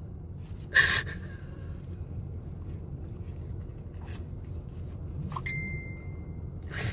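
A woman crying quietly in a car, with sharp sniffling breaths about a second in, again around four seconds and at the end, over a low steady hum in the car's cabin. A thin high tone holds for about a second near the end.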